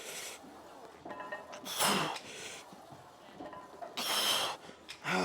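A man breathing hard through a strenuous leg-exercise set: four sharp, forceful breaths, a few seconds apart, the second with a slight voiced grunt.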